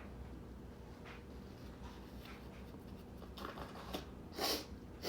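A man's faint breaths, then near the end two loud, sudden bursts: sneezes in a sneezing fit brought on by snuffing chhinkni sneezing powder.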